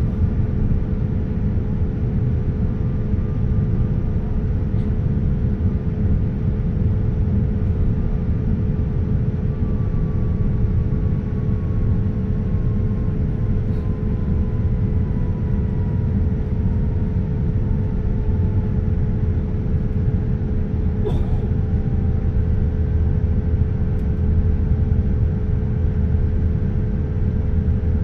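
Boeing 787-9 cabin noise during descent: a steady rumble of engine and airflow noise with a steady hum. A faint whine slowly falls in pitch through the middle, and there is a single brief click about three-quarters of the way through.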